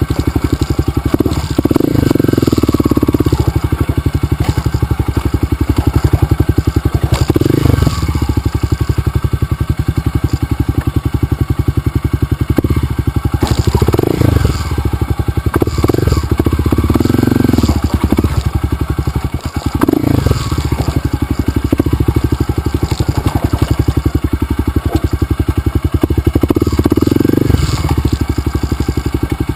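Dirt bike engine running, its note shifting now and then as the throttle changes.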